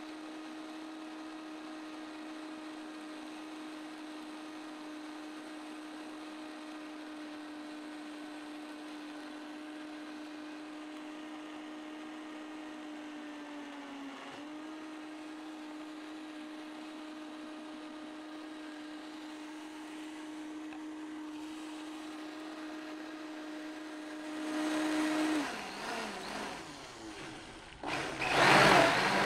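Countertop blender running steadily as it purées a thick mixture thinned with ice water, its motor giving a steady hum. Near the end it grows louder and its pitch drops, then a short, loud burst comes just before the end.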